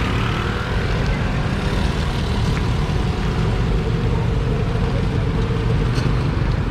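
Steady low engine rumble of a Mekong River car ferry, running without change.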